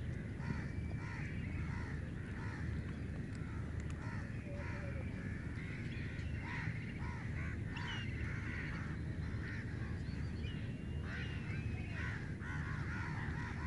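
A flock of birds calling over and over in short, harsh caws, over a steady low rumble.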